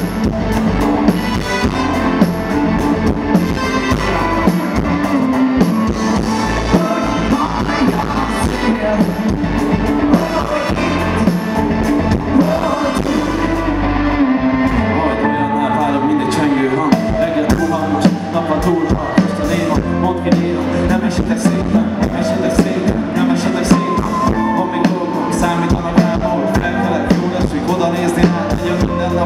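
Live band music from a festival stage, heard from within the crowd: drum kit, bass, electric guitars and horns playing a pop/hip-hop song. About halfway through, the cymbals and bright top end drop out for a couple of seconds before the full band comes back in.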